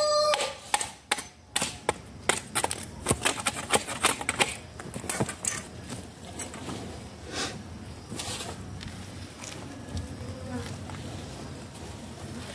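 Irregular knocks and scrapes of a hand tool working fertilizer material. They come in quick succession for the first few seconds and then grow sparser.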